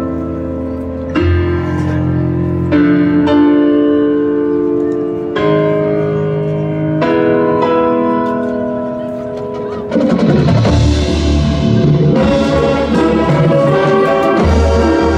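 High school marching band playing: a run of held brass-and-woodwind chords that change every second or two, then about ten seconds in the full band comes in louder with percussion.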